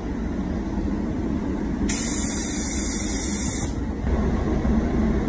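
Automotive paint spray gun hissing for about two seconds as it lays clear coat over a car's black paint, over a steady low rumble.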